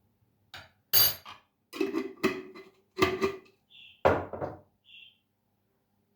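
Hard items clinking and knocking as they are handled and set down, about five sharp knocks with a brief ringing tone, plus two short high squeaks.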